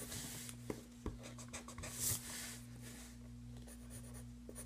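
Pencil drawing on paper: soft, scratchy strokes that come and go, the loudest about two seconds in, with a few light ticks and a steady low hum underneath.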